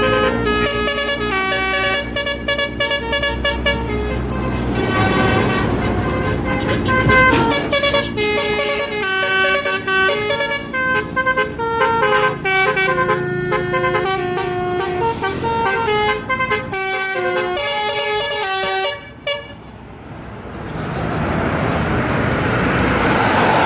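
Tour bus telolet horns, multi-tone musical air horns, playing a long run of quick melodic notes over the bus engine. The horns stop about 19 seconds in. A swelling rush of engine noise follows.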